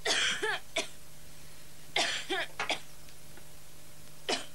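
A person coughing: three short coughs about two seconds apart, the last one briefest.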